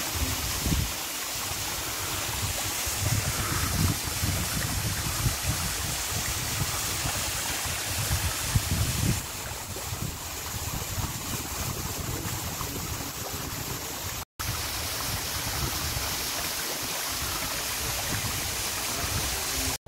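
Thin waterfall splashing down a rock face in a steady rush of water, with gusts of wind buffeting the microphone.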